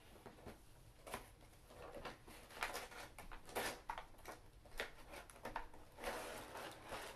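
Cardboard lid of a science kit box being worked loose and slid off by hand: scattered scrapes, rubs and light taps of cardboard, getting busier from about two seconds in.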